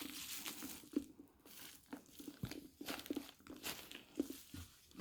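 Faint, irregular rustling and crinkling with light clicks and taps: paper or packaging and the bag being handled.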